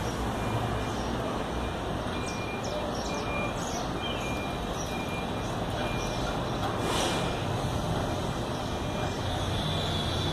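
Steady outdoor town ambience: a low hum of distant traffic under an even hiss, with a faint steady high-pitched tone.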